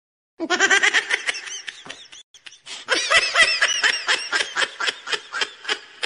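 A rapid, high-pitched cackling laugh, "nyahahaha…ahahahehaha", a goofy meme sound effect: a fast string of short ha-ha pulses, each rising and falling in pitch, with a short break about two seconds in before the cackling picks up again.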